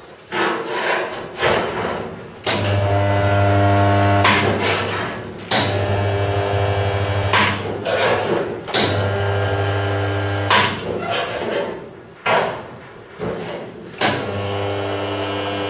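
Handheld spot welder buzzing steadily through four welds of about two seconds each, each starting abruptly, as it joins the dash panel to the bulkhead lip through weld-through primer. Short clicks and knocks from handling the welder come between the welds.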